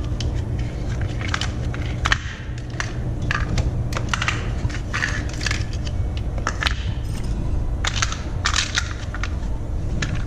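Irregular clicks, taps and rattles of the Power-Pole Micro Anchor's hard plastic battery pack and bracket being handled, over a steady low hum.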